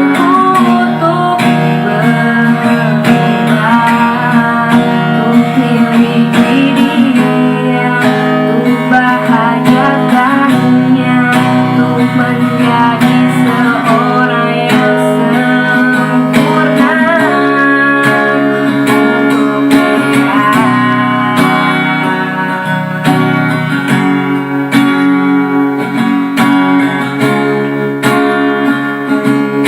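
Music led by guitar, with pitched melody lines that bend and waver over the chords.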